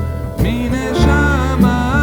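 Background music with guitar and a melody line that bends in pitch from about half a second in.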